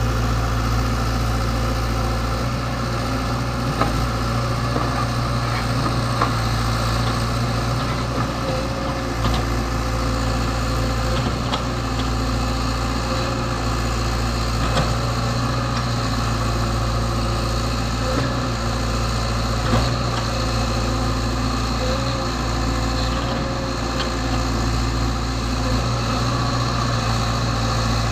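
Old excavator's diesel engine running steadily, with a few light clicks and knocks here and there.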